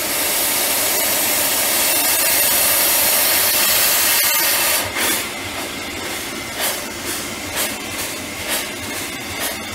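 1920 Huber steam traction engine getting under way: a steady loud hiss of steam for about four and a half seconds, then an even beat of exhaust chuffs, roughly two a second, as the engine turns over.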